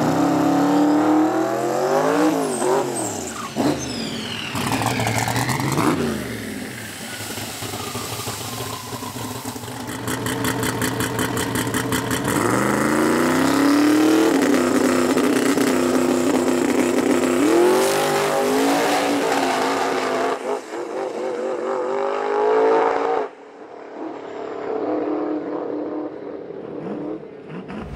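Drag race car engine revving and accelerating hard, its pitch rising and falling, with a rapid even pulsing about ten seconds in. Then a long steady full-throttle pull with a gear change about seventeen seconds in, before the engine lets off.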